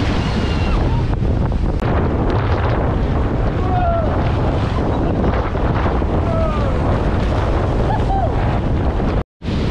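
Sea surf breaking and washing around people wading, with strong wind buffeting the camera microphone, and a few brief voices over it. The sound cuts out for a split second near the end.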